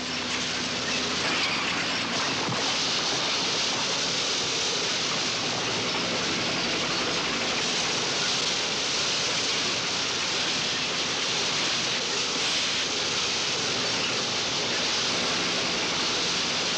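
Snow avalanche rushing down a mountainside: a steady, dense hiss like a waterfall that holds at the same level throughout.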